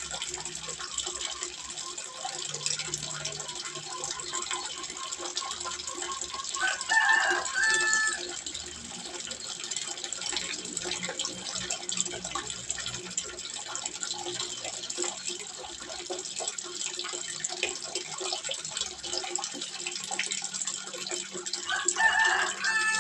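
Water trickling steadily into a small fish pond. A rooster crows twice, about seven seconds in and again near the end, and the crows are louder than the water.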